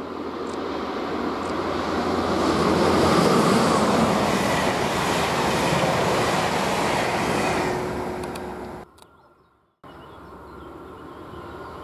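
Electric-hauled passenger train passing close by: the rush of wheels on rail builds to a peak a few seconds in, holds while the coaches go by, then fades. Near the end the sound drops out for a moment and returns as a fainter, steady rumble of a train approaching from far off.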